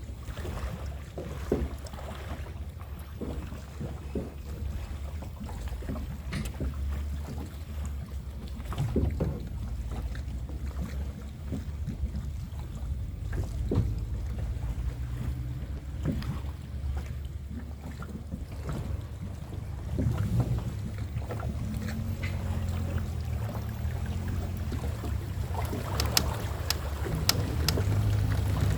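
A small fishing boat's motor running steadily, its pitch shifting a little now and then, with scattered knocks and clatter on board.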